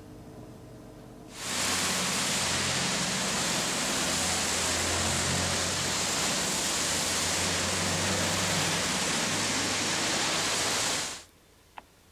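Steady hiss of rain and car tyres on a wet street, with a low traffic rumble underneath. It comes in abruptly about a second and a half in and cuts off shortly before the end.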